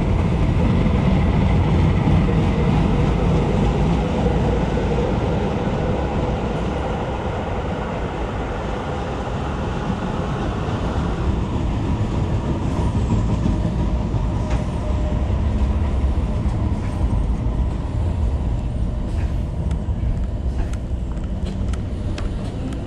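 Tyne & Wear Metrocar electric train running alongside the platform, a steady rumble with a humming motor tone. In the second half, scattered light clicks sound over the train noise.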